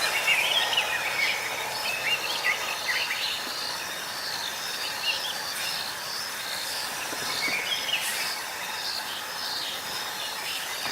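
Outdoor ambience of birds chirping over steady insect noise, with a soft high call repeating about twice a second; the bird chirps cluster near the start and again about seven seconds in.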